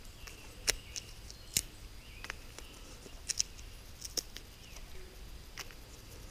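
About ten faint, sharp snaps and crackles at irregular intervals, as small dry twigs and forest litter are broken and picked over by hand for fire tinder.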